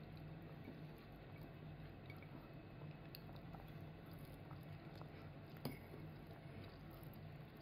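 Faint sounds of a toddler eating: a spoon scraping and lightly clicking in a ceramic bowl of rice, with soft chewing, over a low steady hum.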